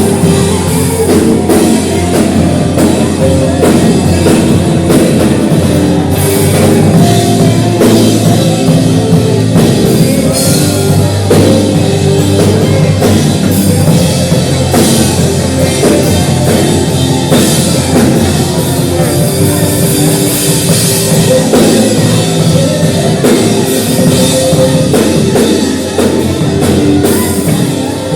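Loud worship band music in a rock style, with a drum kit and guitar playing steadily throughout.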